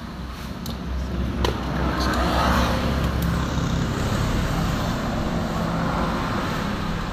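A motor vehicle engine running with a steady low hum, growing louder over the first two seconds or so and then holding steady. A few sharp clicks come in the first second and a half.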